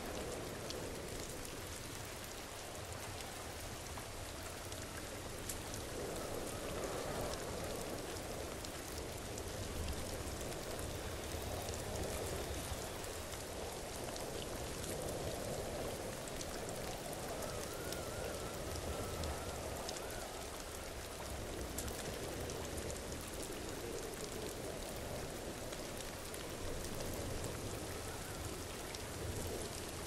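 Waterfall: a steady rush of falling water with a fine pattering texture, even in level throughout.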